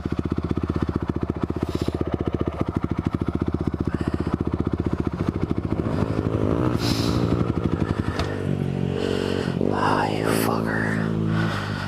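Honda CRF250R single-cylinder four-stroke engine running at low speed with an even, steady firing pulse. About eight seconds in the sound changes: the deepest thump drops away and the pitch wavers up and down.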